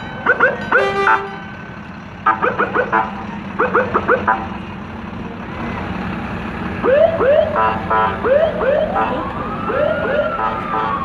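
Emergency-vehicle siren sounding short rising whoops in bursts, then a slower wail that rises and falls near the end.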